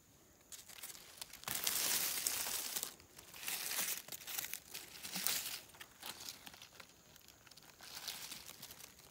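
Dry leaf litter and pine needles rustling and crinkling as they are disturbed, in several crackly bursts; the longest and loudest starts about a second and a half in and lasts over a second.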